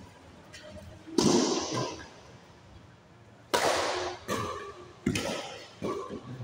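Badminton rackets striking a shuttlecock in a doubles rally, each sharp hit echoing in a large hall. One hard hit comes about a second in, then a quick exchange of four hits about three-quarters of a second apart in the second half.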